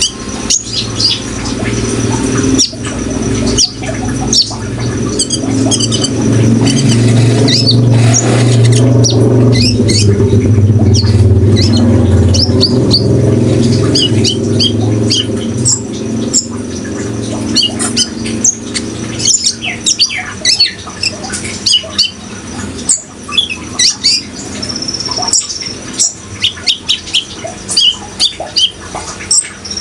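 Kolibri ninja sunbird singing: rapid, high, sharp chirps and short trills repeating throughout. Under them a low rushing sound, the water sound of a bird-therapy track, swells for several seconds in the middle and then fades.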